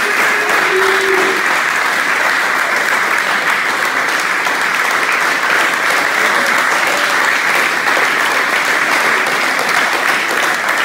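A group of wrestlers clapping their hands, steady continuous applause that neither builds nor stops.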